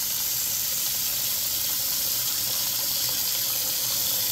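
Kitchen tap running steadily into the sink as root vegetables are washed under it.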